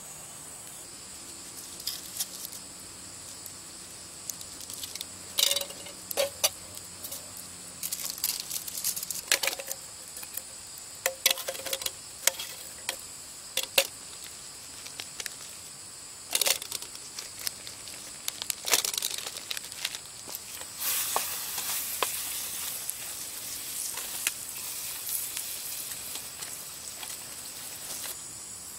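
Sausages frying in oil in a pan over a wood campfire: sizzling with scattered sharp pops and crackles, the sizzle turning steady over the last several seconds. Insects trill steadily behind.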